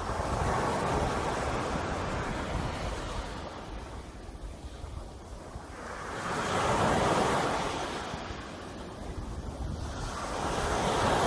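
Sea waves breaking and washing on a shore, the surf swelling and falling back in slow surges about every four seconds.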